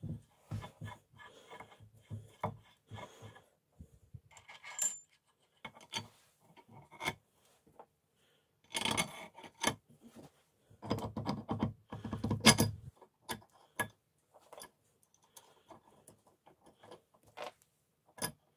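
Steel parts of a fly press clinking, rattling and scraping as it is reassembled by hand. Irregular light clicks, with busier clattering about nine seconds in and again from about eleven to thirteen seconds.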